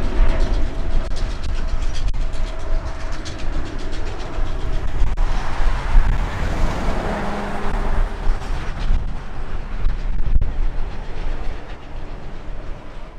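Wide-body jet airliner's engines at takeoff thrust: a loud, deep rumble that swells toward the middle and eases off near the end.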